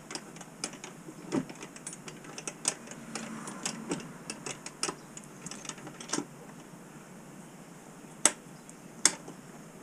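Scattered, irregular metal clicks and taps as a slot cutter bit is worked loose and removed from a router in a router table. The bit and tools knock against the collet and the metal insert plate, with two sharper clicks near the end.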